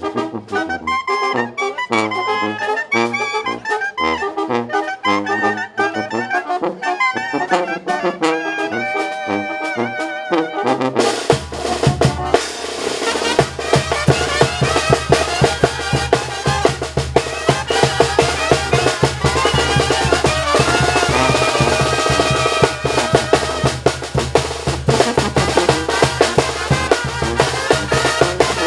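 Mexican banda playing: trumpets and trombones carry the tune over drums. About eleven seconds in the sound changes abruptly to a fuller, denser full-band passage with a heavy bass and a steady drum beat.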